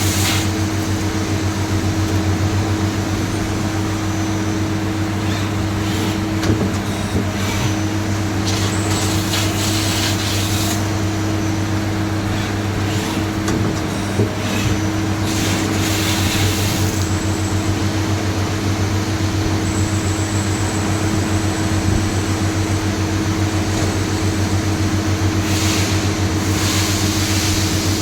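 CNC machine running, a steady low machine hum with a few constant tones above it. Hissing bursts about two seconds long come three times.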